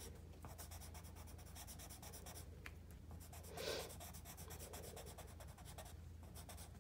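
Colored pencil scratching on paper in a fast run of short, even shading strokes, faint. One short louder sound comes a little past the middle.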